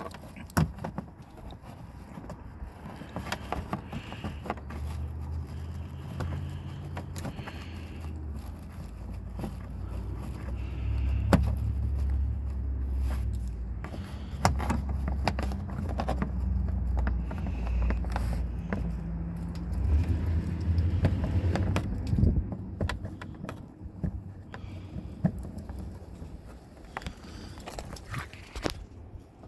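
Irregular small metallic clicks, scrapes and rattles as a bolt is fed by hand through the inner door into the back of a pickup's interior door handle and threaded in. A low rumble runs under it from about four seconds in until a little past twenty seconds.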